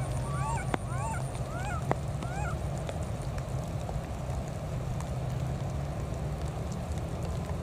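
A baby macaque giving about five short, high squeaks that rise and fall, in the first couple of seconds, over a steady background hiss.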